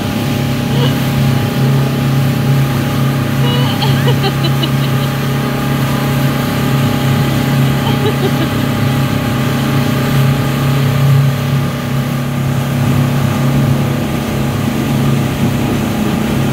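Outboard motor running steadily at towing speed, an even hum that doesn't change, over the rush of the boat's wake.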